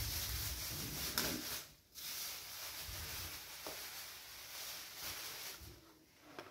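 Thin plastic bag rustling and crinkling as it is pulled over the hair and tied at the back, with a brief pause about two seconds in.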